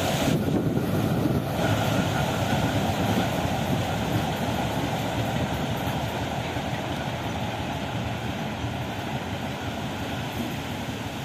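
ChME3 diesel shunting locomotive running as it moves away along the track, its engine and rail noise slowly fading, with wind noise on the microphone.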